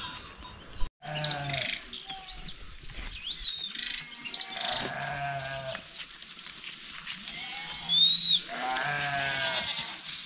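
A flock of small livestock bleating: many overlapping calls of about half a second each, one after another.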